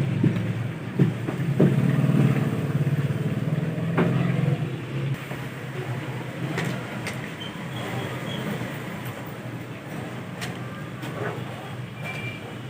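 Street traffic: a motor vehicle's engine running close by for the first few seconds, then fading away, over steady background noise with a few sharp clicks.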